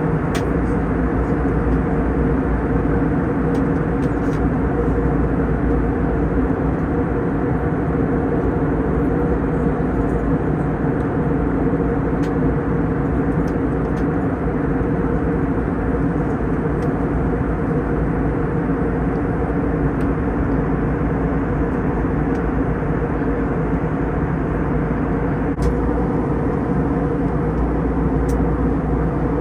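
Steady roar and hum of a jet airliner's cabin, the engines running evenly through the descent, with a few faint ticks.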